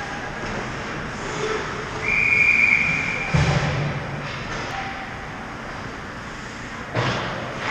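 A referee's whistle blows one steady, shrill blast of about a second, about two seconds in, stopping play. It rises over a hockey rink's steady din of skates on ice, with a low thud just after the whistle and a sharp knock near the end.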